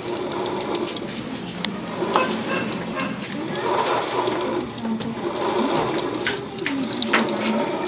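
Honda Zoomer-X scooter running, with a whirring gear noise from the crankcase and many small ticks and rattles over it.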